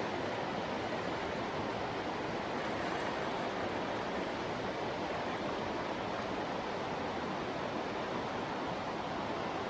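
Steady rushing of river water, an even hiss with no distinct splashes or breaks.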